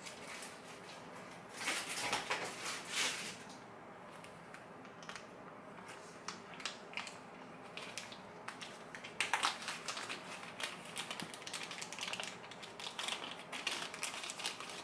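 Thin clear plastic bag crinkling and rustling as it is handled and opened by hand to take out a lock pick, in scattered bursts with small clicks between, loudest about two seconds in and again around nine seconds.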